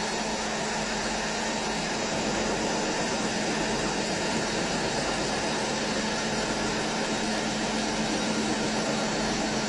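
CNC machine tool running: a steady, even machine noise with a low hum underneath.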